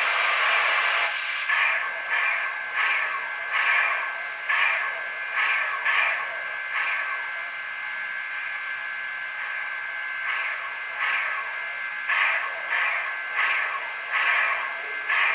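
Steam locomotive sounds from a LokSound V5 decoder in an HO-scale Southern Pacific cab-forward model, played through its small speaker: a steady steam hiss that cuts off about a second in, then a slow run of chuffs about 1.3 a second, which pauses for a few seconds in the middle and starts again, over a faint steady whine.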